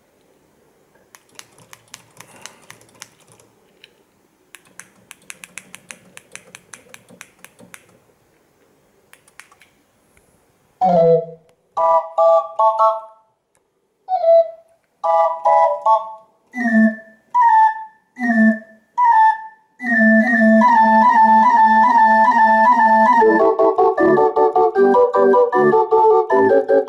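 Faint scattered clicking for the first ten seconds, then a MIDI-driven barrel organ (flašinet) starts up on its pipes about eleven seconds in: a string of separate flute-like notes with short pauses, then from about twenty seconds a steady tune with accompaniment.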